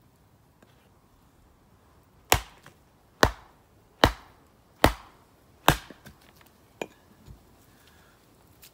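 Hatchet chopping into a short log of firewood to split it: five sharp strikes about a second apart, followed by two lighter knocks.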